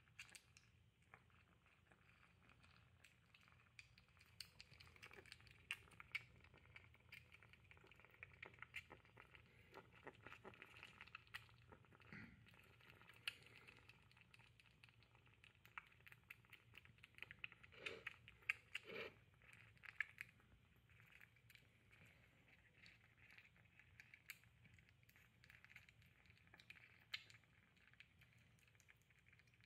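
Calico kitten eating cat food from a ceramic dish: faint, quick clicks of chewing, with a few louder knocks a little past halfway.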